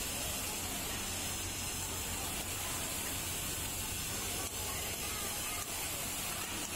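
Single-needle lockstitch industrial sewing machine stitching through denim, under a steady hiss and low hum of garment-factory machinery.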